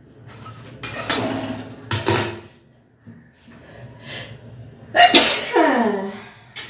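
A woman sneezing several times after sniffing chilli powder and dried chillies. The loudest sneeze comes about five seconds in and ends in a falling voiced cry.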